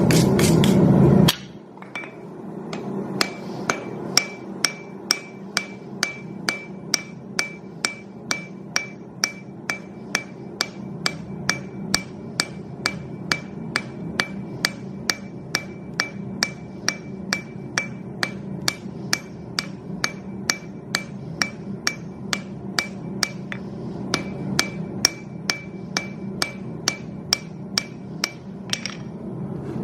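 Hand hammer striking hot steel on an anvil while forging a cone drift. The blows are steady, about two a second, each with a bright metallic ring, and they go on almost to the end. A loud rushing noise in the first second or so cuts off before the hammering starts, and a steady low rumble continues underneath.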